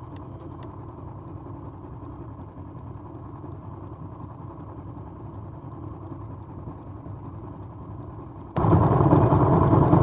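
Motorcycle engine idling steadily, warming up before an oil change, with a rapid ticking of about four clicks a second that stops within the first second. About eight and a half seconds in the sound abruptly becomes much louder.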